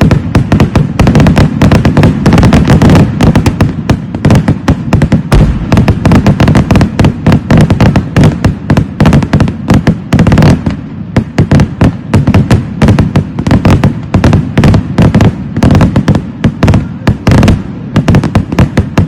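Kerala vedikkettu fireworks barrage: a dense, continuous volley of explosions, many bangs a second, with a heavy booming low end. The volley thins briefly about halfway through, then picks up again.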